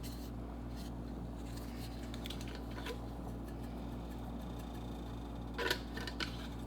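Steady low electrical hum in a kitchen, with a few light ticks and, about five and a half seconds in, a short cluster of clicks and taps from handling a spice jar of dried basil.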